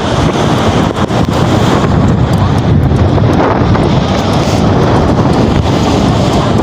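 Wind buffeting the microphone: a loud, steady, rough rumble with no speech over it.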